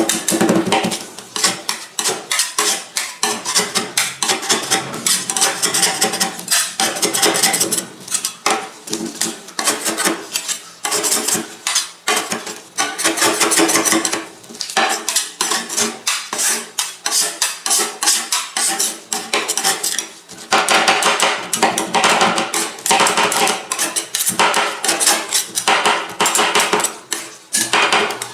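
Metal spatulas rapidly clacking and scraping on a steel cold plate, chopping and mixing a rolled ice cream base.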